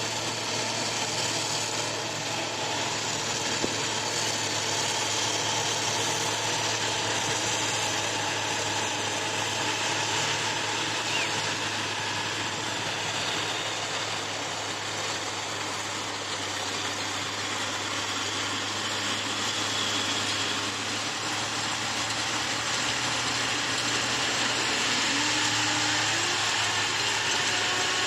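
John Deere rice combine harvester running steadily, its engine and threshing machinery giving a constant mechanical drone, with a whine that rises and holds near the end.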